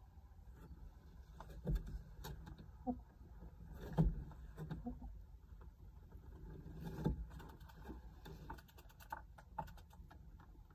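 Roosting hens settling for the night on a wooden perch: scattered soft thumps and rustling as they shift their footing, the loudest knock about four seconds in, with a couple of brief quiet clucks.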